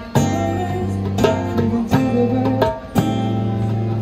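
Live acoustic band music in an instrumental stretch: an acoustic guitar strummed in chords with sharp accented strokes, over a steady low bass note. There is no singing.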